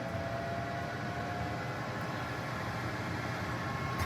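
Countertop air-fryer oven's convection fan running in air-fry mode: a steady whooshing of moving air with a few faint, steady whining tones.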